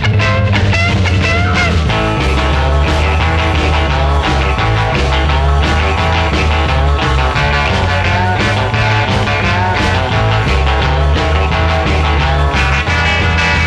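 Rock music with electric guitar over a strong bass line; a fuller layer of instruments joins near the end.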